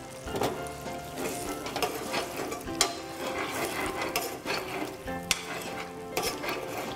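A ladle stirring a thick, simmering curry in a pan, with a faint sizzle and several sharp clinks of the ladle against the pan.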